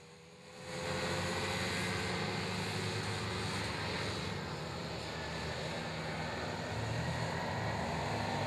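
Several small youth ATV engines running hard around a dirt track: a steady engine buzz over a rough, noisy haze. It comes in suddenly and loud just under a second in, then holds steady.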